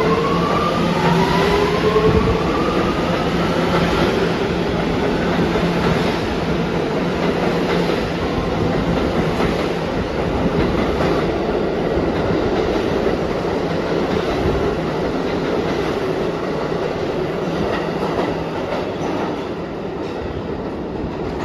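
R211A subway train pulling out of a station. Its propulsion whine rises in pitch over the first few seconds as it accelerates, then gives way to a steady rumble of wheels on rail with clicking over rail joints. The sound eases off slightly near the end.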